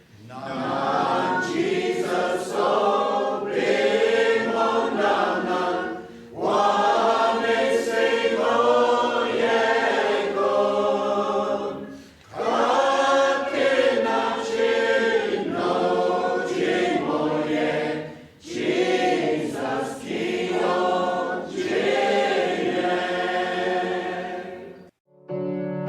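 Voices singing a hymn in phrases of about six seconds, with brief pauses between them.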